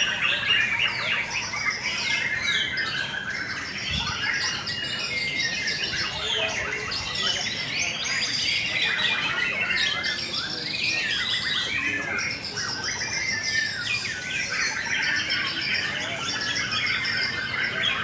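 Many caged white-rumped shamas (murai batu) singing at once in a song contest, a dense, unbroken mix of rapid overlapping whistled phrases and chirps.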